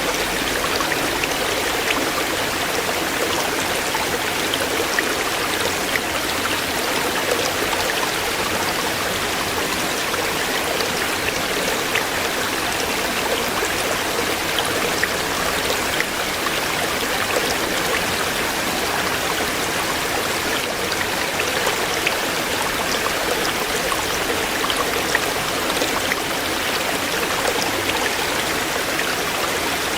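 Shallow stream of water flowing steadily over stones, a continuous rushing babble with small splashes throughout.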